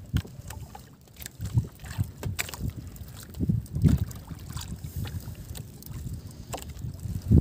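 Water sloshing and lapping against a small outrigger boat's hull, with wind buffeting the microphone and a few light knocks.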